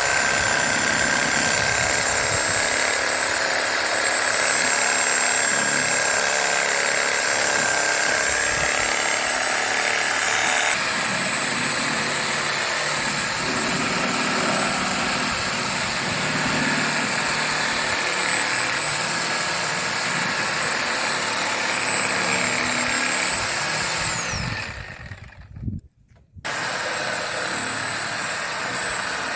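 A motor running with a steady whine and high steady tones. About four-fifths of the way through its pitch falls, it cuts out almost to silence for a couple of seconds, and then a steady running noise starts again.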